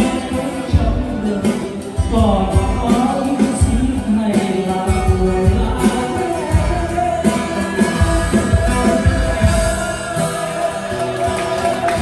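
Live band music played loud through PA speakers: a man singing over strummed acoustic guitars and a steady beat.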